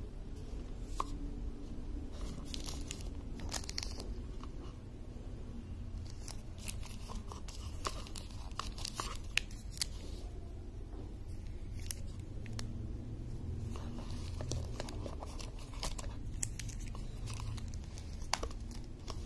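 Plastic packaging crinkling and tearing as wireless earbuds are unpacked from a cardboard box, with scattered light clicks and taps as the earbuds are handled, over a steady low hum.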